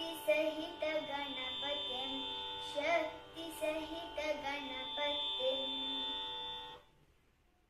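A young girl singing a devotional song to Ganesha over a steady drone accompaniment; voice and drone stop together about seven seconds in.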